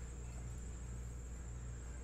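Room tone: a steady low electrical hum with a thin, high, steady whine over it.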